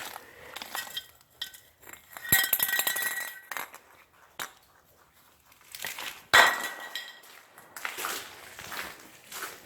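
Two sharp clinks of a hard object, each ringing briefly, about four seconds apart, with scattered smaller taps and crunches between them.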